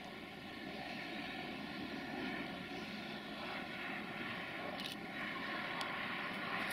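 Distant freight train behind an LE 5100 kW electric locomotive: a steady rumble with a faint whine, and a few short sharp clicks in the second half.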